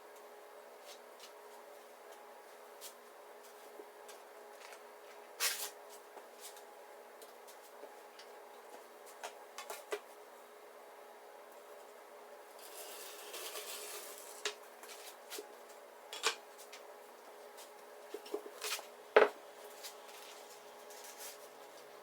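Scattered small clicks and knocks of objects being handled and set down on a workbench, with a sharper knock near the end and a brief rustle in the middle, over a faint steady hum.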